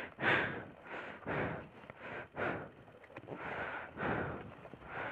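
A person breathing heavily close to the microphone, short noisy breaths in and out about once a second.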